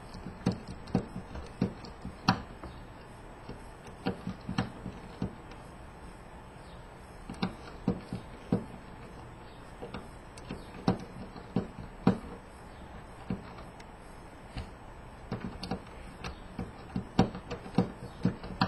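Irregular sharp clicks and taps of a Phillips screwdriver working a small screw out of a PS3 Blu-ray drive, some single and some in quick clusters.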